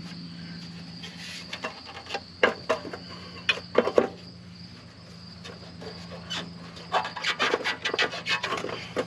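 Scraping, rustling and clacking as an air cleaner is handled and nesting material is pulled out of it. The noises come in two clusters, one near the middle and a denser run near the end, over a steady hum and a thin high whine.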